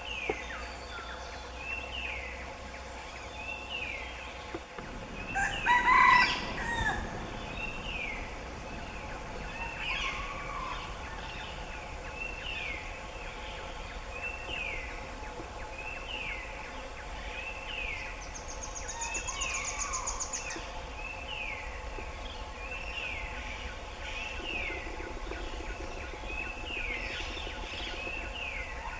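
Forest bird calls: a bird repeats a short falling whistle about once a second, and a fowl crows loudly once about six seconds in, the loudest sound. A rapid high trill joins briefly around two-thirds of the way through, over a faint steady hum.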